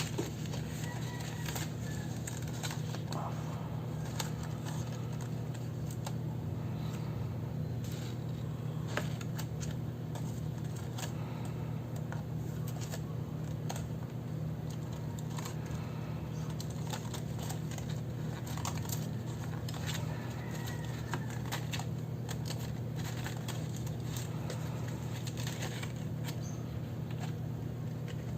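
Small handling noises of paper and stationery during journaling: scattered light clicks, taps and rustles over a steady low hum.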